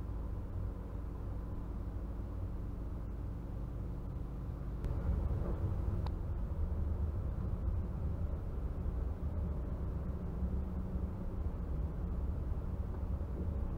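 Steady low rumble and hum inside a Stadler Variobahn tram, with several steady tones over the rumble; it grows louder about five seconds in.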